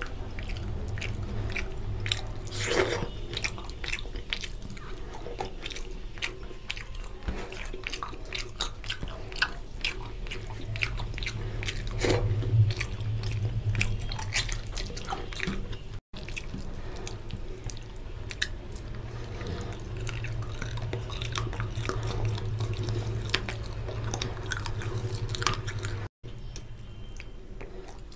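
Close-up chewing of rice and fish curry eaten by hand, with wet smacking and clicking mouth sounds throughout. The sound drops out briefly twice, about halfway through and near the end.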